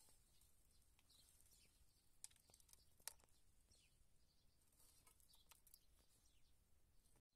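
Near silence: faint outdoor ambience with a few faint, short high chirps and small clicks.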